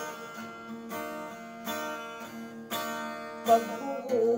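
Acoustic guitar strummed in slow chords, one strum about every second, each chord left ringing into the next: an instrumental passage between the sung lines of a song.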